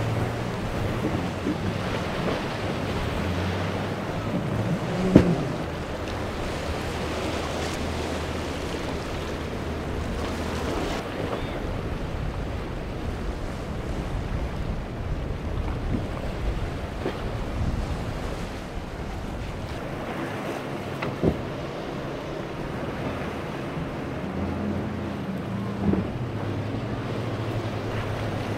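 Powerboat engines running as boats cross rough inlet surf, with waves breaking and wind noise on the microphone. A steady low engine hum fades after about ten seconds and returns near the end, and a few sharp knocks come through, the loudest about five seconds in.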